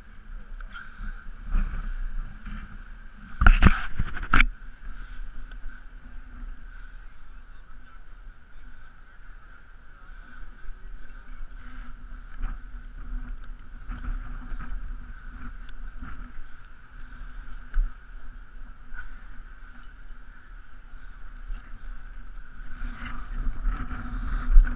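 Gloved hands strapping on lineman's climbing gaffs and handling a climbing harness: scattered clicks and clinks of buckles and metal hardware, with two sharp clacks about four seconds in and more clinking near the end. A steady hum runs underneath.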